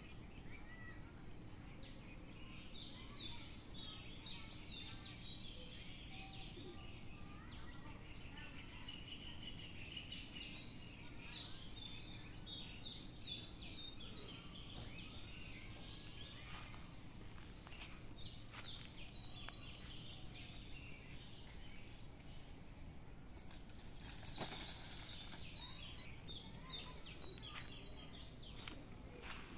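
Small birds chirping: many short, high calls scattered throughout, over a steady low background noise.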